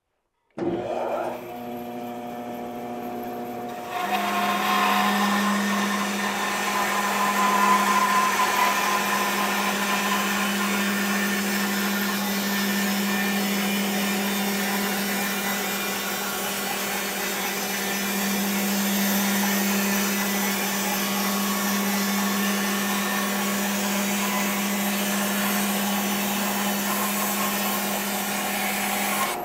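Bandsaw switched on about half a second in, its motor running up to a steady hum. From about four seconds in the blade is resawing a wide board on edge against the fence, a steady cutting noise over the hum that eases off near the end as the cut finishes.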